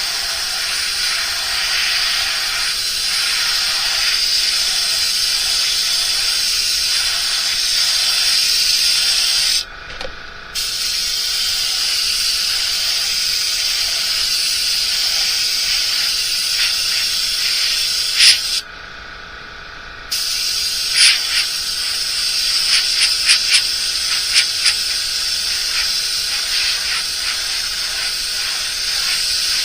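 Paint spraying onto a lure body: a steady hiss that stops twice for a second or so, once about ten seconds in and again just before twenty, followed by several sharp clicks.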